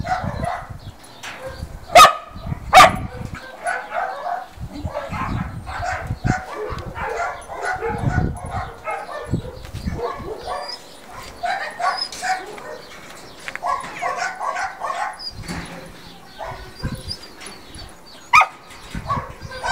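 Dog whining and yipping in short pitched bursts throughout, with two loud sharp barks under a second apart about two seconds in and another near the end.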